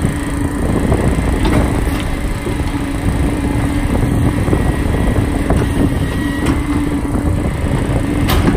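Freightliner M2 rear-load garbage truck running with a steady hydraulic tone as its cart tipper lifts and dumps a wheeled trash cart into the Pak-Mor hopper, with a few knocks and rattles from the cart and tipper.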